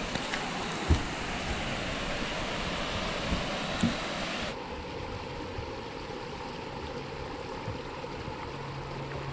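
Steady rush of flowing water from a large spring branch, with a couple of faint knocks. About halfway through, the rush turns abruptly duller and a little quieter.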